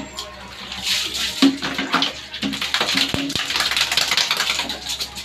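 Water splashing and sloshing as a wet dog is washed by hand with water from a dipper. Music plays in the background.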